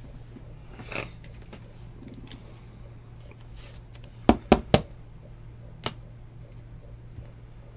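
A clear hard-plastic card holder with a card inside, tapped three times in quick succession on the tabletop a little past halfway, then once more, lighter, about a second later. A soft rustle of handling comes about a second in, over a low steady hum.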